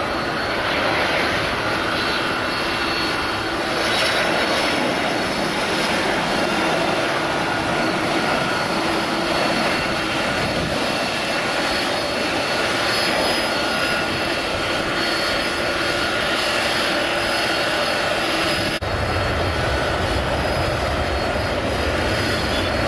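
Boeing 767 jet engines on landing approach and touchdown: steady jet engine noise with a high, whining tone over it. About nineteen seconds in, the sound changes abruptly to another 767's engines as it taxis, with more low rumble.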